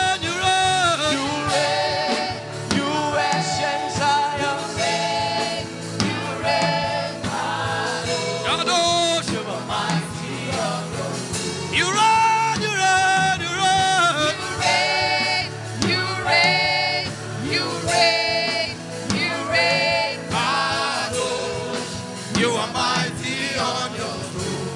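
Gospel worship music: singing over an instrumental backing.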